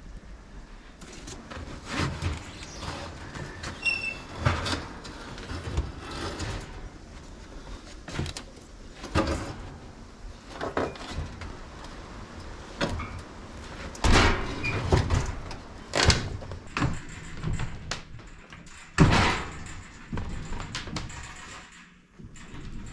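Irregular heavy knocks, thumps and scrapes of an old Detroit Jewel cookstove's metal body being rocked corner to corner and walked across a deck and through a doorway, with the loudest knocks about two-thirds of the way through.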